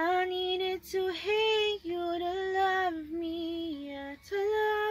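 A woman singing unaccompanied, holding long notes in short phrases with brief breaks between them.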